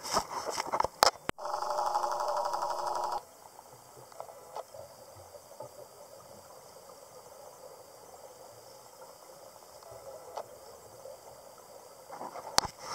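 Underwater recording of a scuba diver breathing through a regulator: clicking and crackling, then a dense burst of exhaled bubbles rushing out for about two seconds, a long stretch of faint hiss with scattered clicks, and more crackling bubbles near the end as the next breath begins.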